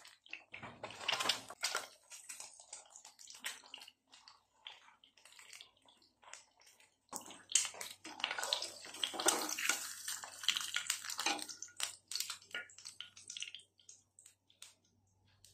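Eggs frying in oil in a nonstick pan: a crackling sizzle full of sharp pops and spatters, loudest about a second in and again from about seven to twelve seconds, as a spatula works under the eggs. A low steady hum joins about seven seconds in.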